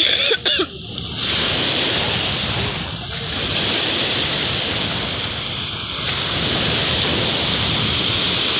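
Choppy, wind-driven lake waves breaking and washing onto the shore, a loud steady rush that swells and eases slightly, with wind buffeting the microphone.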